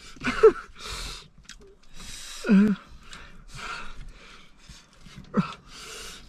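A person breathing hard through the mouth, sharp hissing breaths in and out about once a second, with a few short falling groans: sucking air against the burn of extremely hot chicken wings.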